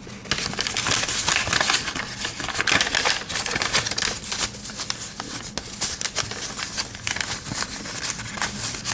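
Close-up handling noise of a Victorinox Compact Swiss Army knife: a dense run of small clicks and rattles as the tweezers and toothpick are worked in and out of the red plastic scales.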